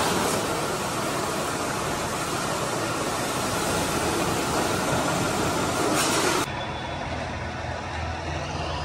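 Pressure washer jet spraying water onto a motorcycle: a loud, steady hiss of spray. About six seconds in it cuts off abruptly, leaving a quieter steady low hum.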